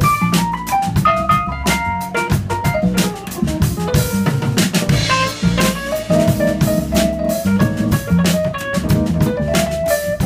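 Live band music: an electric keyboard playing a busy line of short notes over a drum kit keeping a steady beat, with deep low notes underneath.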